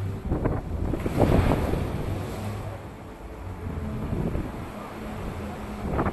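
Waves breaking and washing over the boulders of a rocky seawall, with the loudest surge about a second in. Wind buffets the microphone, and there is a steady low engine hum from passing traffic.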